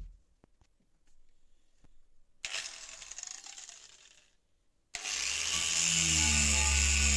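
Angle grinder with a wire wheel starts abruptly about five seconds in and runs loudly, scrubbing rust off a steel spade blade. Before it there are a few faint clicks and a shorter, quieter hiss that fades away.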